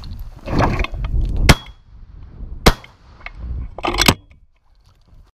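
Three shotgun shots about a second and a half apart, the first the loudest, fired at thrushes.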